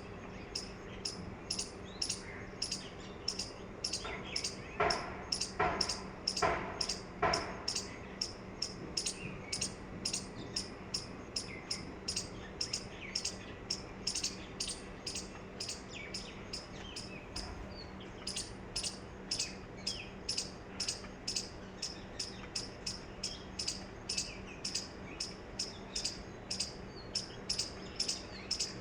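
A bird chirping over and over in a steady rhythm, about two to three short high chirps a second. About four to seven seconds in come four lower, fuller calls, with a faint steady hum underneath.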